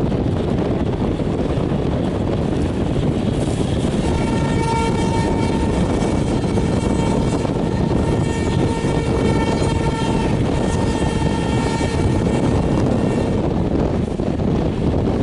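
WAP5 electric locomotive's horn sounding a long, steady-pitched blast that starts about four seconds in and stops a few seconds before the end, briefly dipping near the end of the blast. Underneath is a steady rumble of the train running at speed, mixed with wind.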